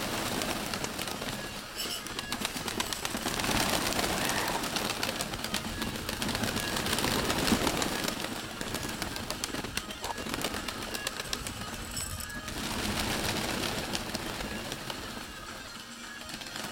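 Domestic pigeons cooing, over a steady rustling noise that swells and fades twice.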